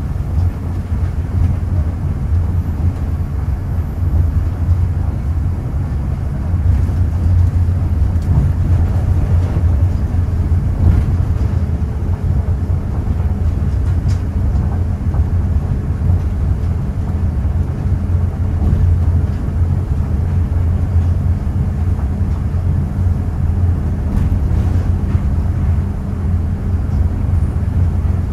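Steady low rumble of an Osaka Metro Nanko Port Town Line (New Tram) automated guideway car running on rubber tyres along its concrete guideway, heard from inside the car.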